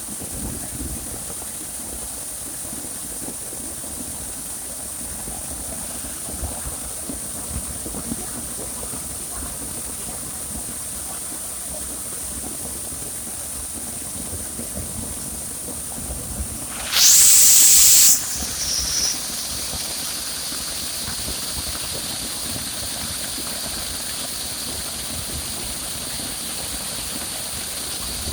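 A steady, high-pitched hissing drone. About two-thirds of the way through, a much louder hiss sweeps upward for about a second, and after it a second, slightly lower steady tone joins the drone.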